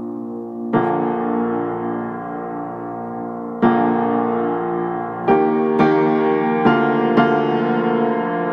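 Background music on piano: sustained chords, each struck and left ringing. The first two come a few seconds apart, and in the second half they come about every half second to second.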